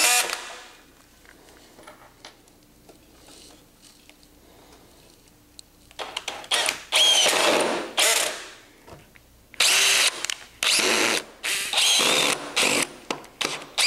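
DeWalt cordless drill driving pocket screws into a wooden assembly. The first few seconds are quiet apart from small handling sounds. About six seconds in the drill starts, with one long run followed by several shorter bursts as each screw is driven home, the motor pitch rising and falling.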